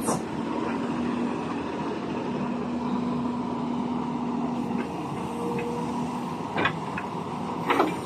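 Crawler excavator's diesel engine running steadily, with a low steady hum that stops a little under five seconds in. A couple of light knocks near the end.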